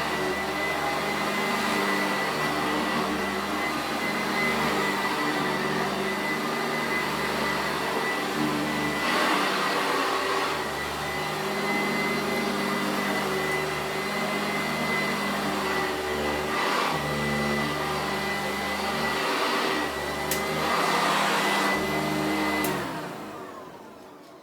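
Sanitaire SC886 upright vacuum cleaner running with a steady motor hum and a high whine. The loudness swells a few times. Near the end it is switched off and the motor winds down, its pitch falling.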